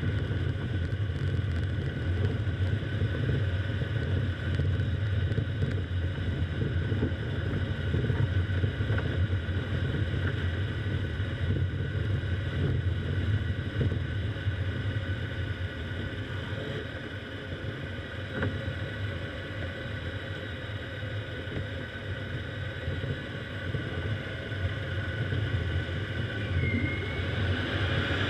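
Car driving along an ice-covered street: a steady low rumble of engine and tyres, a little quieter for several seconds past the middle.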